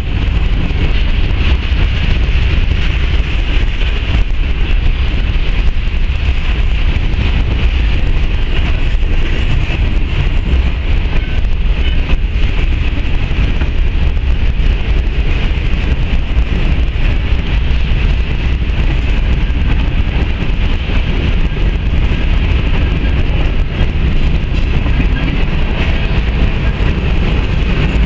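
Freight cars rolling past on the rails at close range: a steady, loud rumble of steel wheels on track with a hiss of rail noise above it. A faint thin high whine joins in during the second half.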